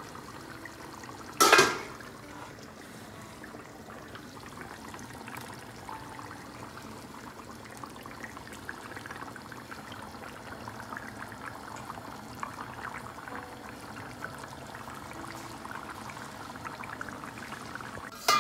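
Thick chicken curry simmering in a kadai on a gas stove, a steady soft bubbling with fine crackle that grows busier in the second half. A sharp metallic clink about a second and a half in, and another at the very end.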